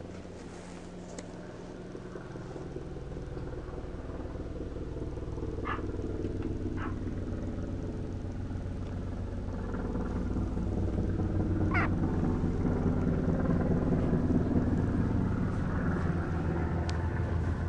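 Young mixed-breed puppies giving a few short, high rising squeaks, about three of them, over a low steady rumble that grows louder towards the end.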